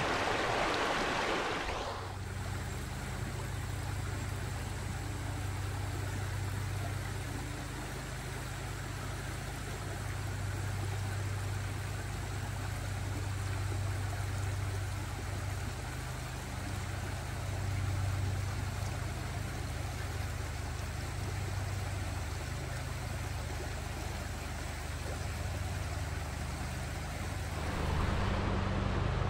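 Running water for about the first two seconds, then a steady low machine hum with a fainter hiss over it until near the end.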